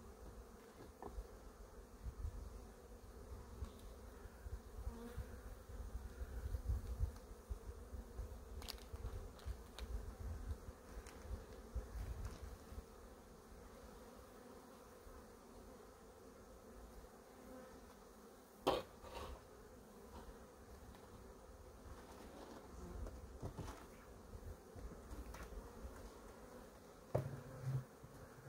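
Honeybees buzzing as a steady hum around a worked hive. A single sharp knock comes about two-thirds of the way through.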